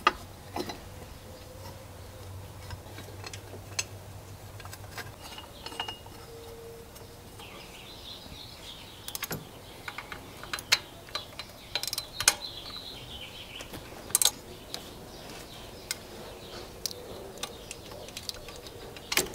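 Hand tools working on engine hardware while a pulley bracket is bolted on: scattered metallic clicks and clinks, with a ratchet wrench turning at times.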